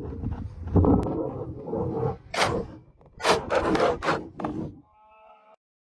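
Irregular scraping and rubbing of hands-on work, with a few sharp hissing scrapes, a brief faint tone near the end, then the sound cuts off suddenly.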